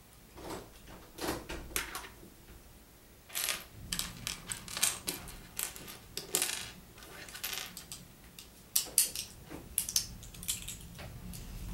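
Small plastic Lego pieces clicking and clattering as they are handled and pressed together: an irregular string of sharp clicks and rattles.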